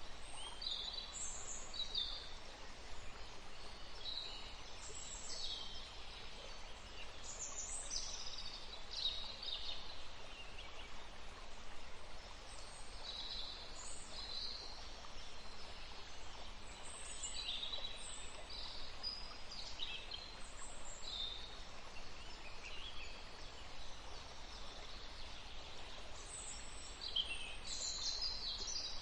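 Many small birds calling and chirping in short bursts, over the steady rush of a small stream.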